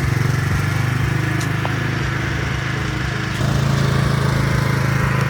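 Sea-Doo's Rotax 718 cc two-stroke twin engine running steadily, out of the water. Its pitch steps up a little over three seconds in.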